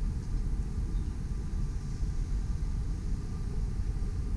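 Outdoor background noise: a low, unsteady rumble with a faint hiss above it.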